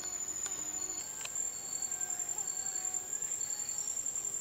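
Rainforest insect chorus: a continuous high-pitched cricket-like trill, with short higher chirps repeating about once a second.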